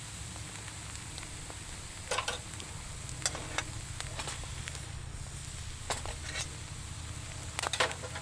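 Wood fire crackling in a fire pit, with a few sharp pops over a steady low background.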